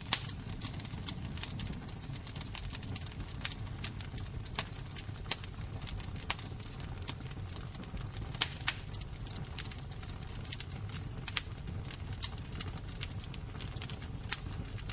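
Thick chicken stroganoff sauce being stirred with a silicone spatula: irregular wet clicks and pops, a few louder ones about eight seconds in, over a steady low hum.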